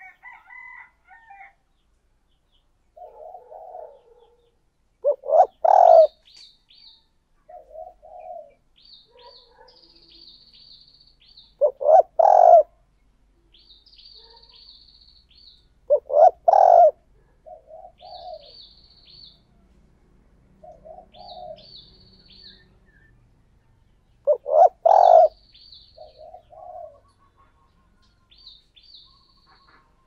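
Spotted doves cooing: four loud coo phrases several seconds apart, with softer coos in between. A small bird chirps high-pitched over them throughout.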